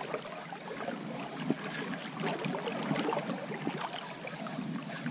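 Shallow river water running and lapping, with small irregular splashes around a landing net held in the current.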